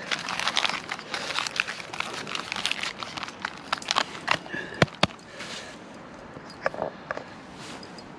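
Aluminium foil crinkling as it is folded and crimped by hand into a parcel: dense crackling for about five seconds, two sharp knocks about five seconds in, then only a few faint crinkles.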